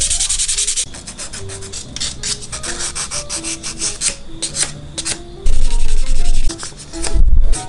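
Hand sanding the edges of a small yosegi wooden pendant with sandpaper: a quick run of fast rubbing strokes at the start, then shorter separate strokes. Two loud low rumbles break in, one about five and a half seconds in and a shorter one near the end.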